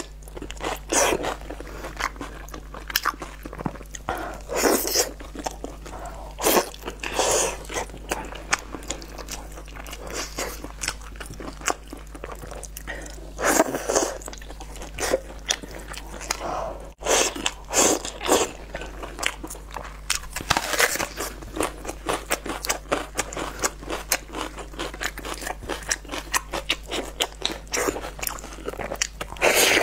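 Close-miked eating sounds: a person biting and chewing braised meat off the bone, an irregular run of short sharp bites and chews, with a brief break a little past halfway.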